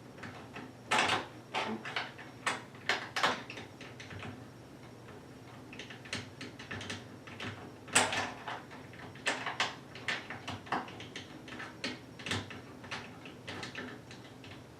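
Allen wrench clicking and scraping as bolts are tightened into a rotomolded plastic dog kennel's door hinge, a run of irregular short clicks with the loudest knock about 8 seconds in.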